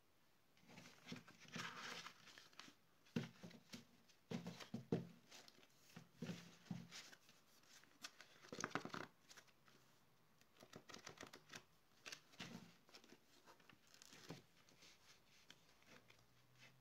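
A stack of white paper sheets handled by hand: irregular rustling and riffling of the sheets, with a few soft knocks as the stack is squared on the tabletop.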